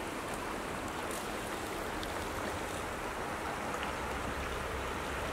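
Shallow river running over a stony gravel bed, a steady rushing of water.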